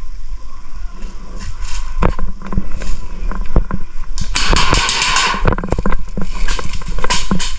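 Airsoft guns firing: scattered single shots, then a quick burst of about eight shots roughly halfway through.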